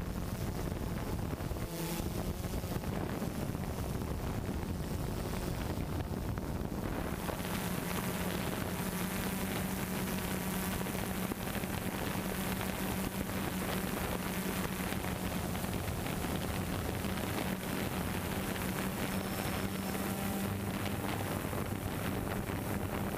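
Steady whir of a DJI Phantom 2 Vision+ quadcopter's propellers and motors, mixed with wind noise; a low hum grows stronger about seven seconds in and holds.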